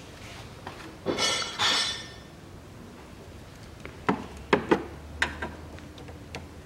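Metal hand tools clinking: two longer scraping clanks with a ringing edge about a second in, then several sharp clicks between about four and five and a half seconds in as a screwdriver is set to a hose clamp.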